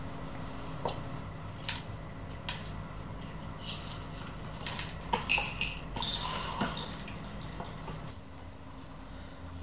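Dry cat kibble clattering in a plastic puzzle feeder as it is put in and pawed out by a cat: scattered small clicks and rattles, busiest and loudest about halfway through.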